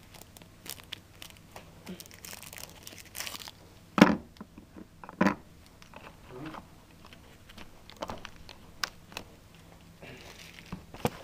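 Rustling and light clicking handling noises, with two sharp knocks about four and five seconds in and scattered smaller clicks after.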